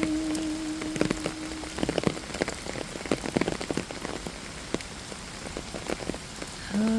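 Rain falling, with many separate drops pattering sharply on a surface over a steady hiss.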